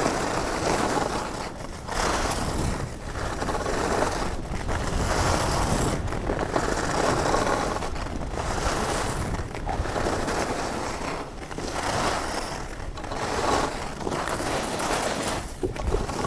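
Skis carving down a groomed piste: a scraping hiss of the edges on snow that swells and drops in a regular rhythm about every second and a half, with wind noise on the microphone.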